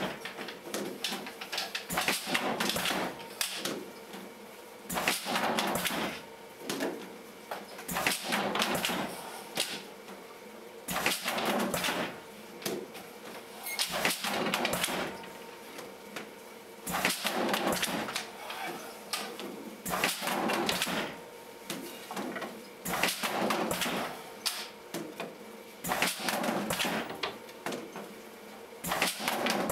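PLUG 1800 stretcher-bar frame assembly machine running automatic cycles: a burst of mechanical clatter about every three seconds as it joins four wooden stretcher bars into a frame, over a faint steady hum.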